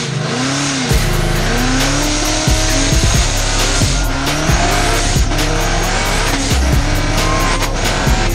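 Nissan 370Z drift car's engine revving up and down, with tyres squealing, under a music track with a steady beat that starts about a second in.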